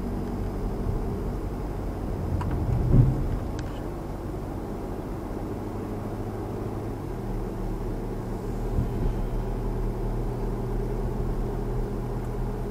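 Car engine and tyre noise heard from inside a moving car, a steady low hum. There is a brief louder bump about three seconds in, and the engine note changes about seven seconds in.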